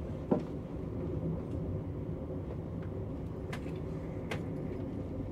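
Passenger train running, heard inside the carriage: a steady low rumble of the wheels on the rails. A sharp click about a third of a second in is the loudest thing, with two fainter ticks later.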